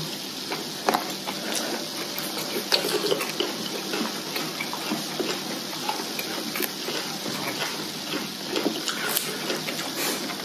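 Hotpot broth bubbling steadily in an electric pot, with scattered small clicks and taps of eating and handling food.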